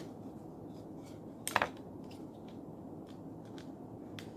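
Faint clicks and taps of smartphone parts being handled during reassembly, with one sharper click about one and a half seconds in.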